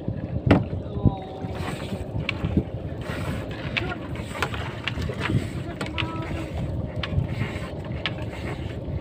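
Wind buffeting the microphone over open water around a bamboo outrigger boat, with scattered clicks and knocks, a sharper one about half a second in, and faint voices.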